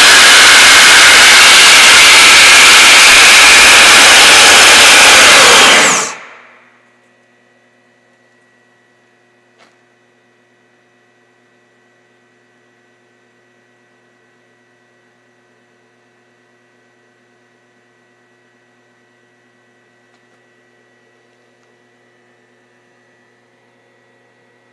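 FTS electric supercharger, a larger compressor on a 24 V sealed lead-acid pack, running flat out with a loud, steady rush of air, then cutting off about six seconds in and dying away within a second. After that only a faint steady electrical hum remains, with one small click a few seconds later.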